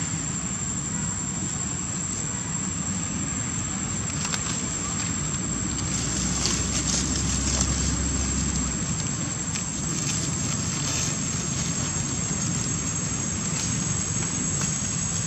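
Steady outdoor background hiss with a constant high-pitched whine, and a few faint crackles about halfway through.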